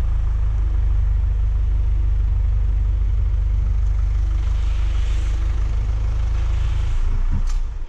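Truck engine running steadily, a low even rumble, as from the crane truck that carries the work basket.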